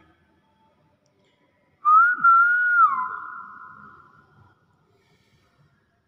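A common hill myna gives one loud whistle about two seconds in. The whistle wavers, drops in pitch, then trails off breathily over a couple of seconds.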